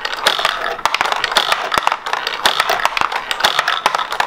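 Tabletop mini basketball game in play: plastic pull-back launchers snapping and small balls clattering against the plastic hoops and backboard, heard as many quick, irregular clicks and taps.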